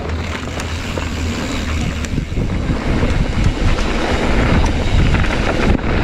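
Wind rushing over the microphone of a camera on a mountain bike descending a dirt trail at speed, over a steady low rumble of tyres and rattling of the bike.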